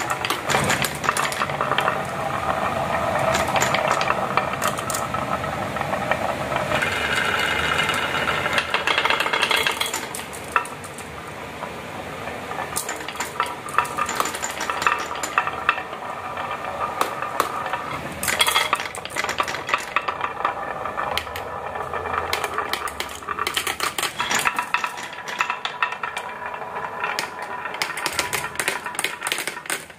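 Marbles rolling and clattering down a toy marble-run track: a continuous rolling rattle with many quick clicks and knocks as the balls hit track pieces and each other.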